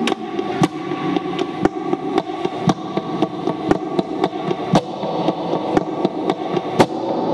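Electric guitar played through effects pedals: a sustained, layered chordal wash, cut by sharp percussive clicks about once a second with lighter ones between.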